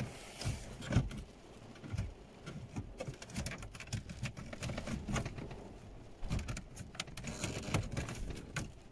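Scattered plastic clicks and knocks of a double-din car stereo head unit being pushed and worked into the dashboard fascia, against its clips and tucked-in wiring, with cloth rustling close to the microphone.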